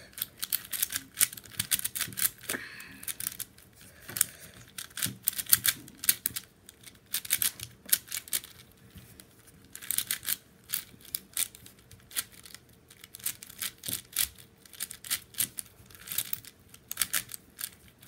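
4x4 Rubik's cube being scrambled by hand: the plastic layers clicking and clacking as they are turned, in quick irregular runs with short pauses between them.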